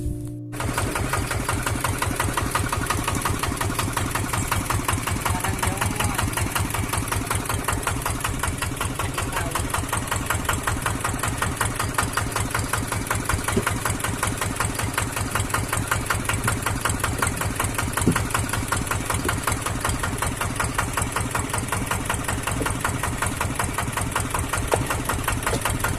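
Boat engine running steadily, its rapid even firing pulses unbroken throughout, with one brief knock about two-thirds of the way through.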